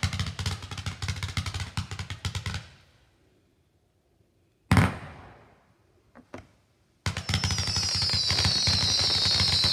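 Fireworks: a fast run of crackling reports that stops about two and a half seconds in. After a gap come a single bang and two small pops, then from about seven seconds in another dense crackling barrage with high whistles gliding slightly downward.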